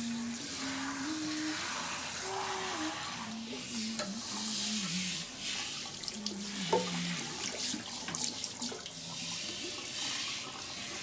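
Handheld shower spraying water onto a wet dog and the basin of a bathroom sink: a steady hiss of running water. A simple tune of held notes sounds underneath it.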